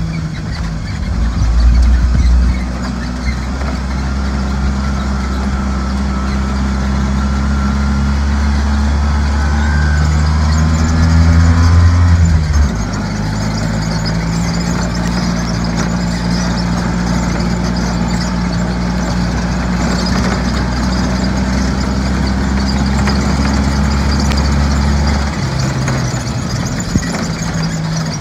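Engine of a Joyner side-by-side running under way, a steady low drone. It swells twice, briefly near the start and again around ten to twelve seconds in, then drops back abruptly.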